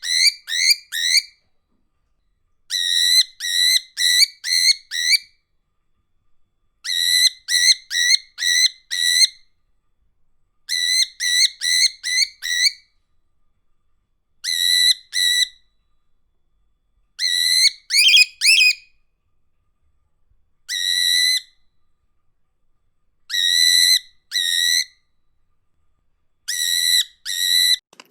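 Clear whistled notes in quick runs of three to six, each note short, steady in pitch and flicking up at its end, with a run every few seconds and silence between. One run has wavering, rising notes instead.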